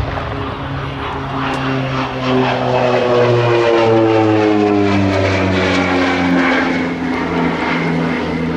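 North American OV-10B Bronco's twin Garrett T76 turboprops passing by in a low flypast. It is a steady propeller drone that swells to its loudest a few seconds in and falls steadily in pitch as the aircraft goes past.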